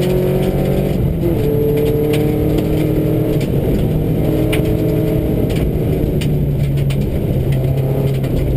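Subaru rally car's flat-four engine, heard from inside the cabin, running hard on a gravel stage. Its pitch shifts with throttle and a gear change about a second in, and stones tick off the underside of the car throughout.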